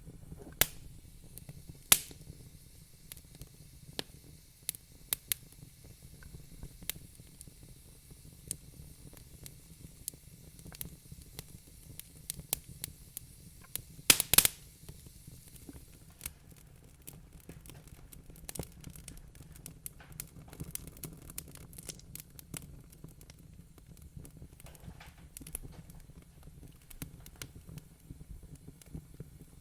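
Wood fire crackling in a fireplace: irregular sharp pops and snaps over a low steady rumble of the flames, with a loud cluster of pops about halfway through.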